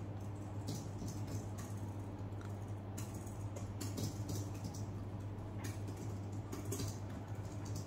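A small plastic spoon tapping and scraping against a plastic divided plate as a toddler scoops food, in short irregular clicks, over a steady low hum.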